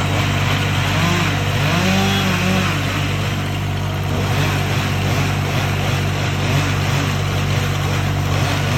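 Gas chainsaw engine running steadily, revved up and back down a few times in the first few seconds.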